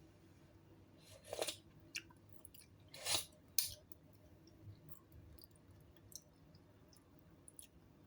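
A person eating hot soup: two short slurps about two seconds apart, then a sharp click and a few faint small clicks.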